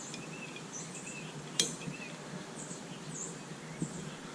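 Small birds chirping over and over, short high calls, with one sharp click about a second and a half in.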